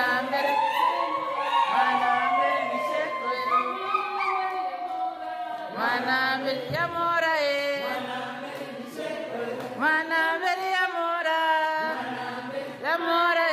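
A group of women singing together without instruments, a lively song with several voices carrying long, sliding notes.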